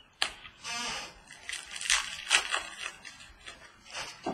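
Trading cards being handled: an irregular run of sliding, flicking and crinkling noises with sharp clicks as cards and packaging are shuffled through.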